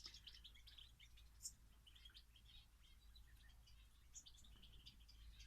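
Faint, scattered short chirps and tweets of small finches and canaries in an aviary.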